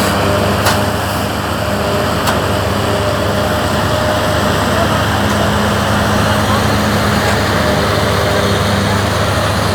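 Mini round silage baler and wrapper machine running steadily, a dense mechanical hum with two sharp clicks in the first few seconds.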